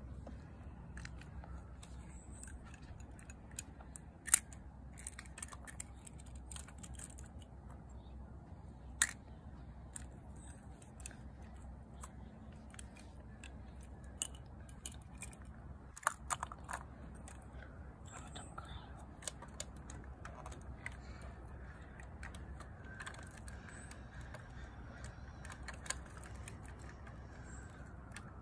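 Scattered small clicks and taps of a die-cast toy garbage truck and little plastic trash carts being handled, with sharper knocks about four, nine and sixteen seconds in, over a steady low rumble.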